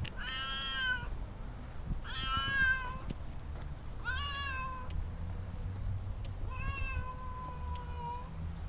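A domestic cat meowing four times, about two seconds apart, the last meow long and drawn out.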